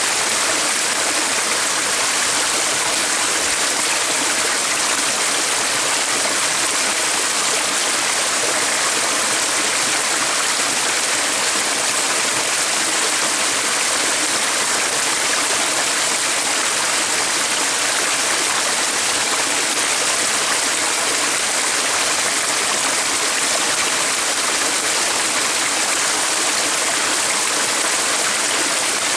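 A stream of flowing water, a steady, unbroken rush.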